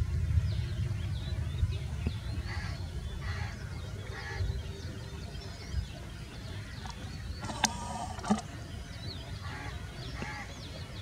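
Wetland ambience: assorted birds calling with short chirps and whistles over a steady low rumble. A louder, harsher call sounds about seven and a half seconds in.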